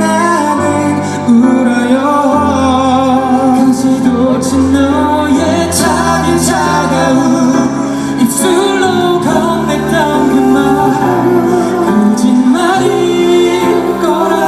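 A slow pop ballad performed live, with singing over the accompaniment.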